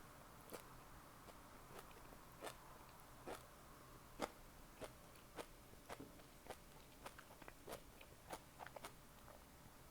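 Close-miked chewing of food, with short, sharp wet clicks and crunches coming in an even rhythm of roughly one every half second to second.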